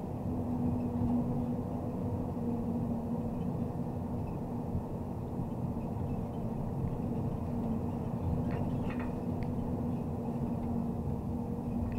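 Diesel engine of a MAZ Zubr truck crane running with a steady, even drone and a constant hum, with a few faint clicks about nine seconds in.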